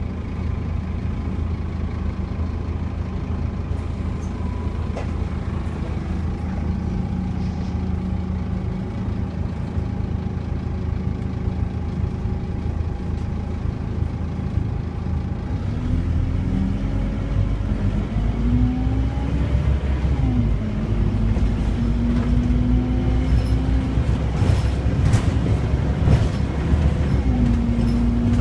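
Scania OmniCity double-decker bus's diesel engine, heard from inside the lower deck. It idles steadily at first, then about halfway through the bus pulls away and the engine gets louder. As the bus accelerates, the engine note rises and drops several times.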